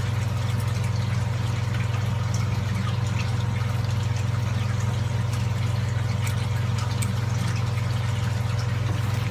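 Steady low electric hum of aquarium pumps running, unchanging throughout.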